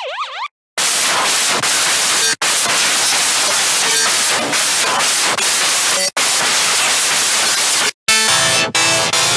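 Xfer Serum software-synth sequence presets being played. A gliding, siren-like tone ends half a second in. After a short gap, a loud hissing noise pattern plays for about seven seconds, broken by brief cut-outs. Near the end, a new pitched, rhythmic preset with bass begins.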